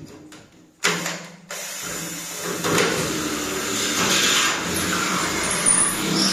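Cordless drill spins up briefly about a second in, then drills steadily into the bathtub's side panel from about two seconds on, a loud, even grinding that holds to the end.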